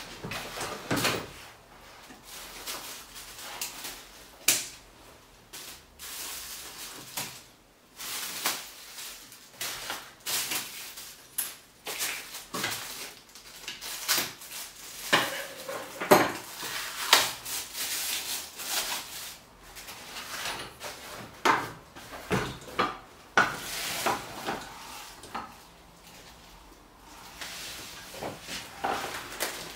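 Plastic wrapping rustling and scissors snipping as a new folding wagon is unpacked, with irregular clicks and clacks of its metal frame and plastic wheels being handled. Near the end the folded steel frame rattles as it is pulled open.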